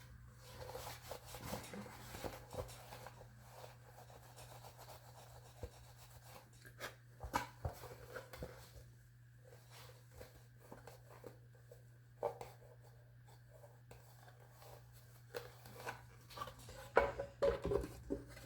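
Parts of a motorcycle instrument cluster being handled during reassembly: faint rubbing and scattered small clicks and taps, with a denser run of louder clicks near the end. A steady low hum runs underneath.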